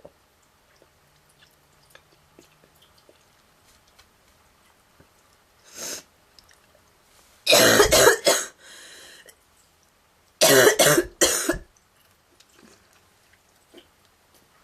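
A girl's harsh, honking, goose-like coughing fit: a single short cough about six seconds in, then a burst of three rapid coughs, a rasping breath drawn in, and a second burst of about three coughs.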